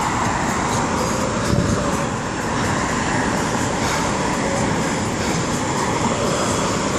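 Floodwater rushing and splashing across pavement, a steady loud rush.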